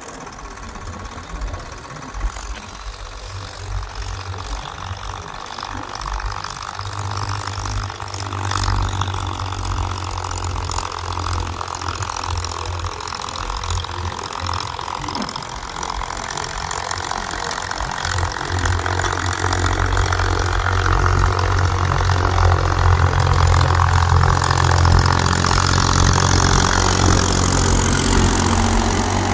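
Powertrac Euro 50 tractor's diesel engine running steadily under load while pulling a 16-disc harrow through ploughed soil, growing louder as the tractor comes closer.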